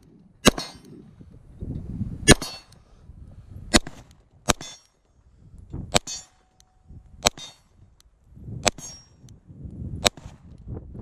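SIG P365 pistol firing eight single shots at steel plates, spaced about one to two seconds apart, the struck steel ringing after the hits. Wind rumbles on the microphone between shots.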